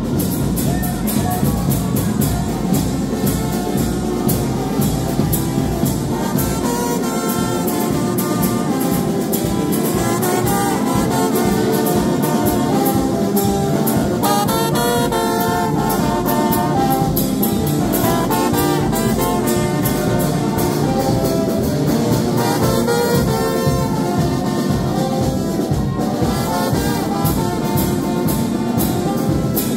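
Brass band of trumpets and baritone horns playing a tune over a steady drum beat, loud.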